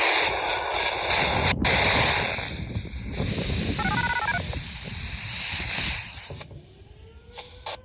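Loud rushing noise, like wind or static, that cuts off about six and a half seconds in. A siren then begins to wind up, its tone rising and levelling off near the end.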